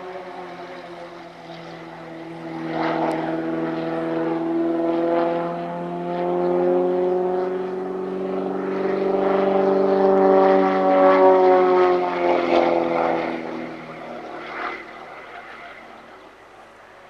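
Extra 300 aerobatic plane's propeller and six-cylinder piston engine, its pitch slowly rising and falling as it manoeuvres. It grows louder, is loudest about ten to twelve seconds in, then fades away near the end.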